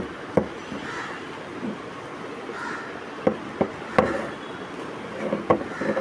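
Handling noise from a gas pressure switch turned in the hand: a handful of sharp, irregular clicks and knocks from its plastic cover and metal body, over a steady background noise.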